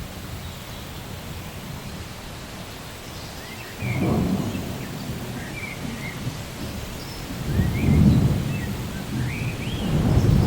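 Steady rain with low rolls of thunder: one rumbles in about four seconds in, a louder one peaks near eight seconds, and another builds near the end.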